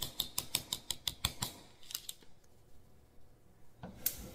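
Gas stove burner's spark igniter clicking rapidly, about five clicks a second, as the knob is held turned to light it. The clicking stops about a second and a half in and starts again near the end.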